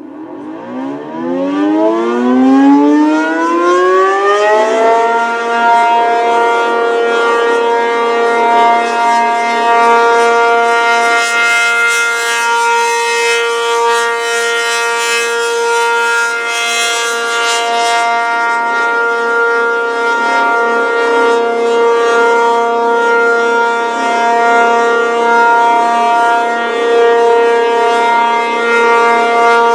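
ACA P-50 outdoor tornado warning siren winding up from silence, its pitch climbing for about five seconds, then holding a loud, steady tone. The sound swells and eases a little in loudness as the rotating siren turns toward and away from the listener.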